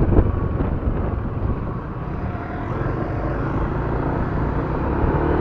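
Motorcycle engine and road noise heard through a helmet-mounted action camera's microphone, a steady low rumble with wind noise. It eases off about two seconds in and builds again.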